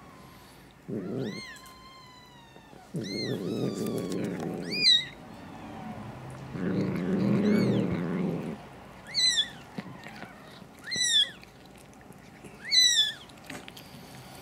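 Newborn kitten mewing: about six short, high-pitched cries a second or two apart, louder in the second half. Between the cries come stretches of wet, rough noise from the mother cat licking and cleaning the kitten just after birth.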